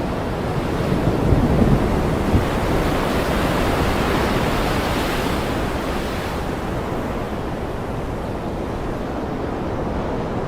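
Ocean surf: a wave swells to a hiss about four to five seconds in and then washes back, over a steady low rumble of the sea.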